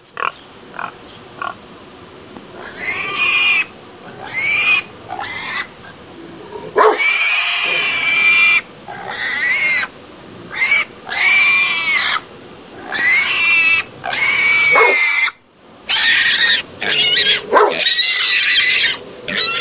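Pigs squealing: a run of loud, high-pitched squeals, each about a second long and rising then falling in pitch, cut off abruptly between them, after a few short, quieter grunts in the first two seconds. A pig-squeal recording played to scare wild boar off crops.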